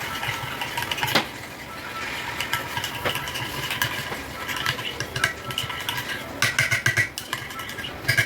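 Cutlery clinking against dishes at a breakfast table, scattered light clinks with a quick run of them about six and a half seconds in.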